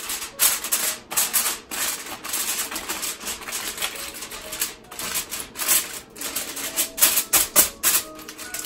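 Heavy-duty aluminium foil crinkling and crackling in quick, irregular bursts as hands fold and crimp it down over the rim of a baking pan.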